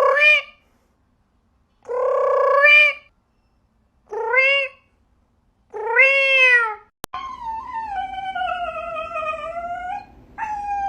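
A cat meowing loudly, four separate meows about two seconds apart, each bending up and down in pitch. After an abrupt cut about seven seconds in, a long drawn-out animal cry slowly falls in pitch, followed by a shorter cry near the end.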